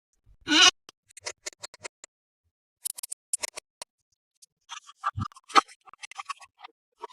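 Plastic toy parts and packaging being handled for unboxing: a loud scrape about half a second in, then a string of light irregular clicks, taps and crinkles, with one dull knock about five seconds in.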